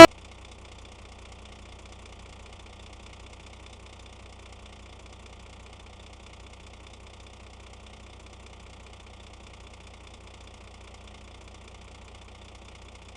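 Truck engine idling steadily, a low, even rumble with no revving.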